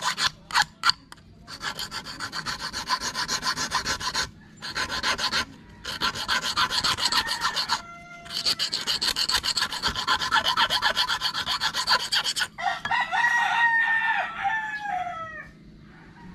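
A hand file rasps over a stainless steel fishing hook in quick, short strokes to smooth its finish, in several bouts with brief pauses. Near the end a rooster crows once, a long call that falls away.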